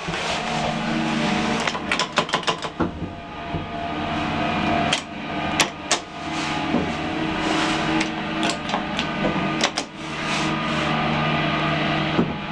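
Old Express lift car in motion: a steady low motor hum with several bursts of sharp clicks and knocks from the lift mechanism.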